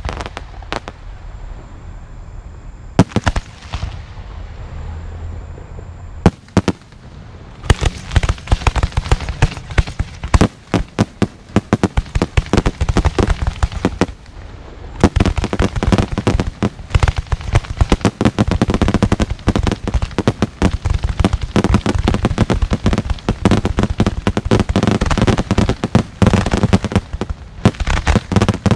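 Aerial fireworks shells launching and bursting. At first there are a few separate bangs; from about seven seconds in they become a dense, rapid barrage, with a brief lull about halfway before it picks up again.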